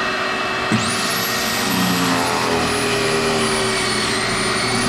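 Kreg Foreman pocket-hole machine switched on with a click about a second in. Its drill motor spins up to a high whine and runs on while the stepped bit bores a pocket hole into a hardwood face-frame member, over a steady background hum.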